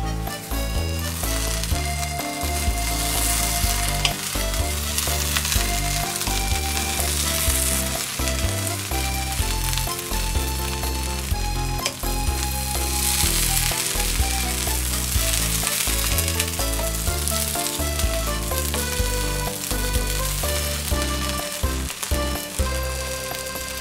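Cooked rice sizzling in a hot frying pan as it is stirred and turned over with a wooden spatula, the grains browning on the bottom. Background music with a melody and a pulsing bass line plays throughout.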